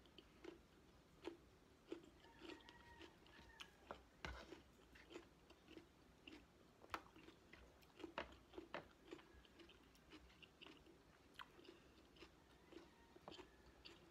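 A person chewing chicken adobo and rice close to the microphone, with short wet smacks and clicks of the mouth, about one or two a second.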